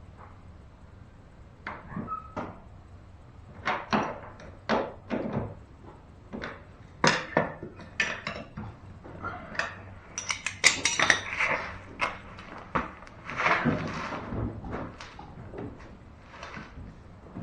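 Metal objects clinking and clattering, a string of separate knocks and clinks with a couple of brief rattling clusters, starting a second or two in and easing off near the end.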